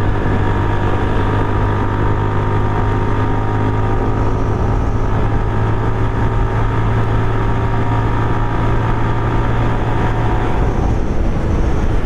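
Motorcycle engine running steadily while riding at an even speed, with wind noise. Its low hum drops away near the end.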